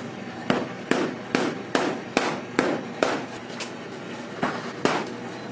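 Baking tray of freshly piped macaron shells banged down on a work counter, about seven sharp raps at a steady pace of roughly two a second, then two more near the end. Rapping the tray like this knocks the air bubbles out of the piped batter.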